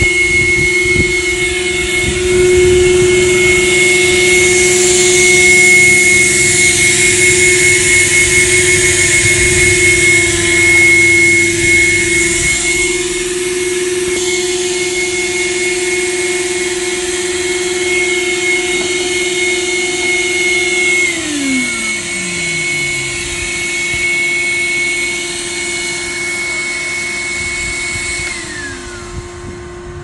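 Several Numatic Henry and Hetty vacuum cleaners running together with a loud, steady whine. About two-thirds of the way through one is switched off and its motor winds down in falling pitch, and another starts winding down near the end.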